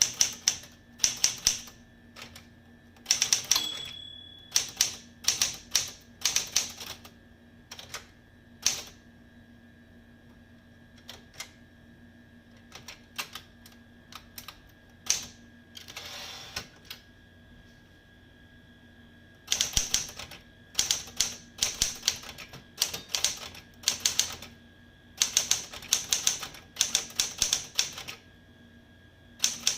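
SCM Sterling 12 manual typewriter being typed on: runs of sharp typebar clacks, a sparser stretch of single keystrokes in the middle, then fast typing again for the last ten seconds. Near the start a brief ring sounds, typical of the typewriter's margin bell.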